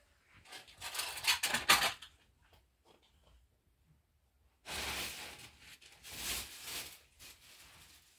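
Two spells of rustling and knocking handling noise, about a second in and again about five seconds in.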